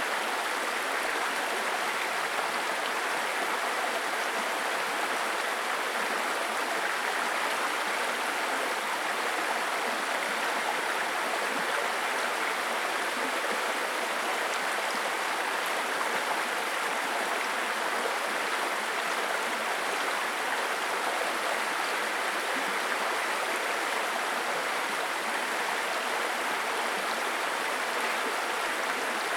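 A babbling brook: stream water running over stones in a steady, unbroken rush.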